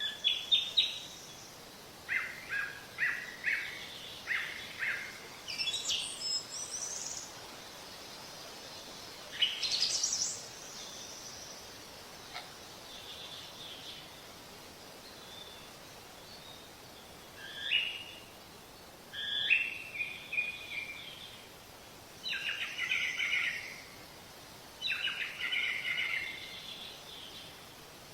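Birds singing and chirping in short phrases every few seconds, some notes sliding in pitch, over a faint steady background hiss.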